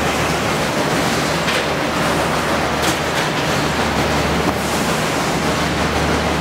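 Steady factory-floor noise in a fish-processing hall: a constant low machinery hum under an even hiss, with a couple of faint clicks.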